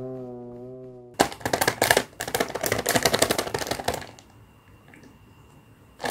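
A held musical note with vibrato fades out in the first second. Then a plastic instant tteokbokki packet crinkles and crackles in the hands for about three seconds, goes quiet, and crinkles again just at the end.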